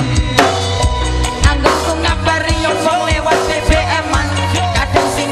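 Live band music with a drum beat, held instrument notes and a singer's voice carrying the melody.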